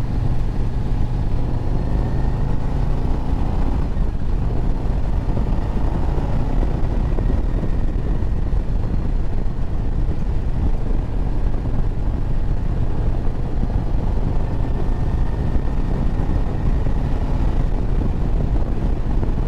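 2024 Harley-Davidson Road Glide's Milwaukee-Eight 117 V-twin running steadily while riding, with a dense, even rush of wind and road noise over it.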